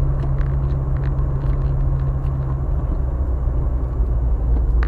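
Car on the road heard through a dashcam, a steady low engine and road rumble. A low hum in it drops away about halfway through.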